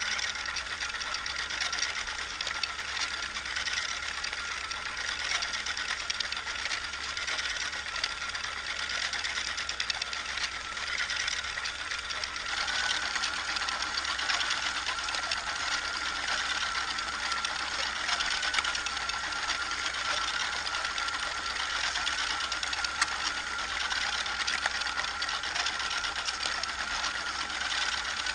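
Model bucket elevator running: its small electric motor whines steadily under the continuous rattle of the bucket chain and of black granulate being scooped up and spilling from the discharge chute. It gets a little louder about twelve seconds in.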